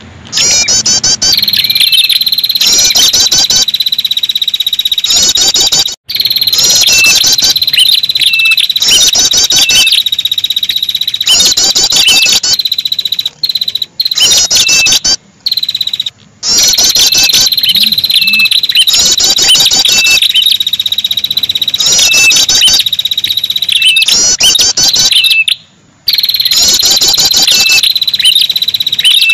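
Bird lure-call recording of a prenjak kepala merah (red-headed prenjak): short, rapid trilled phrases repeat every second or two over a steady, high, insect-like buzzing tone. It cuts out briefly a few times.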